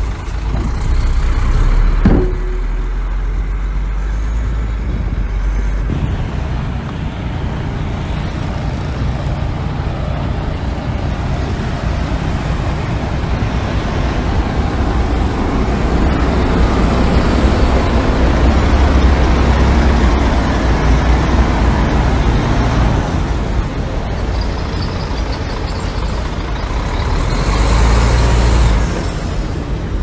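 Heavy diesel engines of dump trucks and a small bulldozer running steadily, with a sharp knock about two seconds in and a louder hissing rush near the end.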